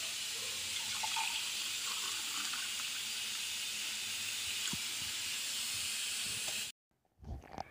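Watermelon juice being poured from a jug into a glass: a steady splashing hiss that cuts off suddenly near the end.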